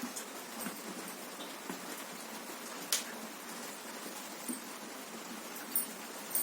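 Steady hiss of heavy rain, with a few faint clicks of people eating fried chicken, one about three seconds in and two near the end.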